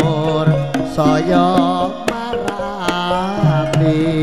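Javanese song music with hand-drum beats and a bending, wavering melody line.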